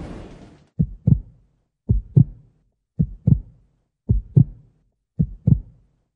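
Heartbeat sound effect: slow paired low thumps, lub-dub, about one pair a second, five pairs in a row. Music fades out in the first half-second before the thumps begin.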